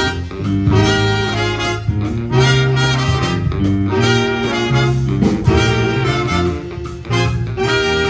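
Live jazz band playing: a saxophone section and brass horns in short ensemble phrases over keyboard and drum kit.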